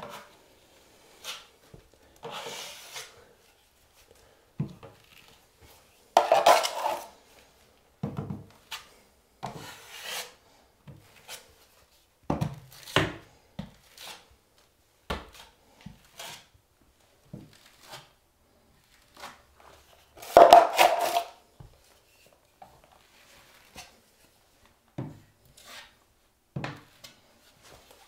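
Steel drywall taping knife scraping and spreading quick-set joint compound in a first coat over FibaFuse-taped seams. It comes as a string of short, irregular strokes, with two longer, louder scrapes about six and twenty seconds in, and the knife is loaded and wiped on a metal mud pan.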